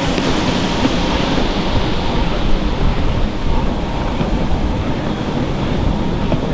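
Stand-up jet skis racing on open water, their engines running steadily at speed, heard through heavy wind noise on the microphone.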